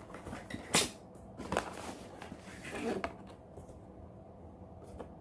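Box and packaging being handled and opened: a few sharp clicks and light rustles, the loudest click just under a second in, with a softer rustle around three seconds.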